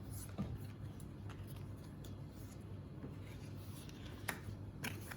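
Pokémon trading cards and their foil pack being handled on a table: soft sliding and rustling with a few light taps and clicks, the clearest about half a second in and twice near the end.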